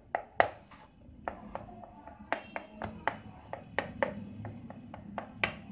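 Kitchen knife cutting slits into pizza dough in an aluminium pan, its tip tapping the pan bottom with short, sharp clicks about two or three times a second.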